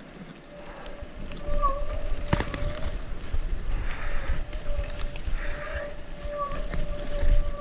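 Mountain bike rolling fast down a dirt forest trail: rumble of the tyres over the ground and wind on the microphone, building about a second in, with sharp knocks from bumps, the loudest a little over two seconds in. A steady thin whine runs under it.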